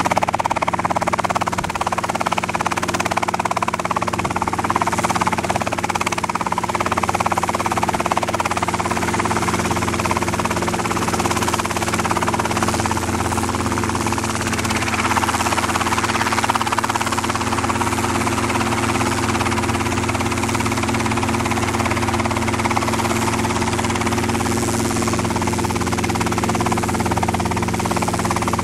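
Robinson R22 helicopter hovering low, heard from outside: the main rotor and four-cylinder Lycoming piston engine run steadily throughout.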